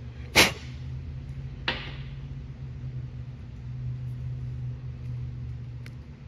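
A sharp metallic clack, then a lighter click about a second later, as a bench-vise-mounted brake-line flaring tool and a steel brake line are handled. A steady low hum runs underneath.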